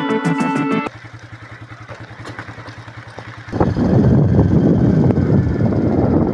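Background music cuts off about a second in, then a motorcycle engine runs quietly for a couple of seconds. Past the middle it gets suddenly loud as the bike rides along, engine running under heavy wind noise on the microphone.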